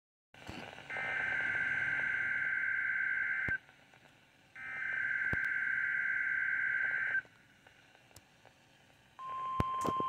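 Emergency Alert System broadcast played through a Midland weather radio's speaker. Two bursts of SAME digital header data sound as a harsh, warbling screech, each about two and a half seconds long with a pause between. About nine seconds in, the steady single-pitched NOAA Weather Radio alert tone begins, announcing the incoming alert.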